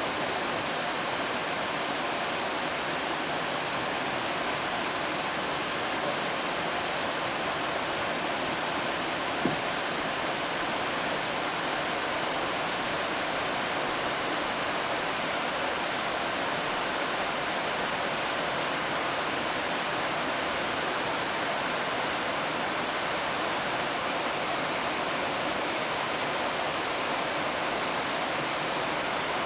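Stream water rushing over small rocky falls and cascades: a steady, even rush of white water.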